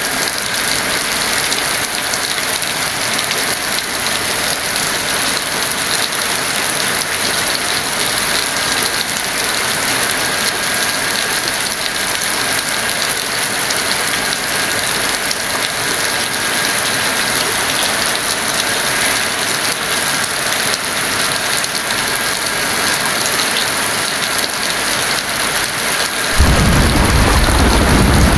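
Heavy rain falling in a steady hiss; near the end a deep rumble of thunder sets in suddenly and keeps rolling.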